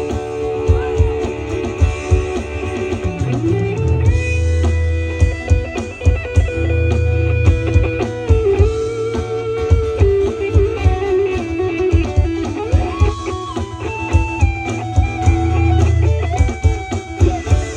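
Instrumental break in a song: an electric guitar plays a lead line of long held notes with a bend about three seconds in, over bass and drums.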